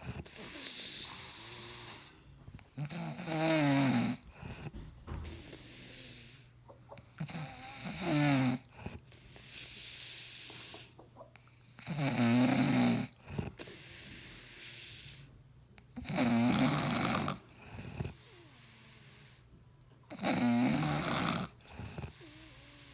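A man snoring in his sleep: five snores about every four seconds, each a wavering, buzzing tone on the in-breath, with a breathy hiss on each out-breath between them.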